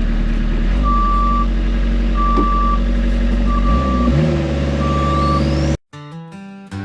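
A machine's engine running steadily while its backup alarm beeps four times, about a second and a half apart. The sound cuts off abruptly near the end and music begins.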